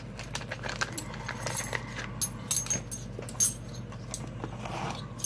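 Small metal tools and lock parts being handled: a string of light metallic clicks, taps and brief high pings, over a steady low hum.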